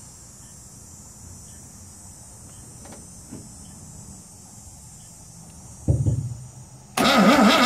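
A car's starter motor cranks a straight-six engine over, starting about seven seconds in with an even, rhythmic pulsing as the cylinders come up on compression. A short low thump comes just before it.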